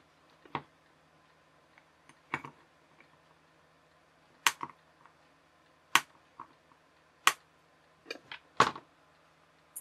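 Sharp clicks and taps of a small kit circuit board and its fitted parts being handled and knocked down against the workbench, about ten at irregular intervals, the loudest near the middle and end.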